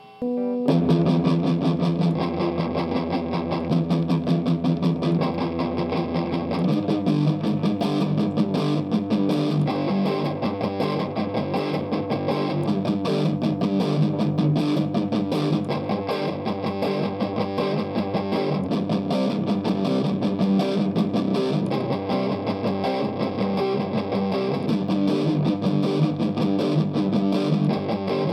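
Distorted electric guitar played through a Marshall 50-watt guitar amplifier: a fast-picked riff of dense notes, starting about half a second in after a brief gap.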